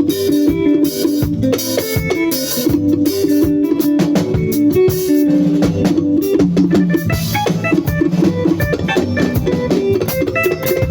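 Band music with guitar and drum kit playing steadily.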